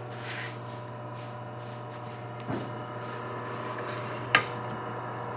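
Electric meat slicer's motor running with a steady hum. A soft knock comes about halfway through, and a sharp click a second or so before the end is the loudest sound.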